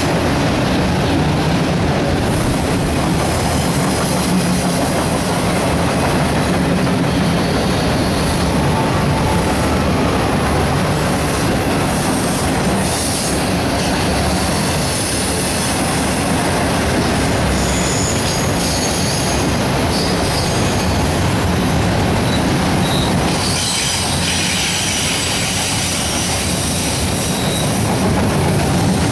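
Freight train's autorack cars rolling past, a steady rumble and rattle of steel wheels on rail, with high-pitched wheel squeal coming in during the second half.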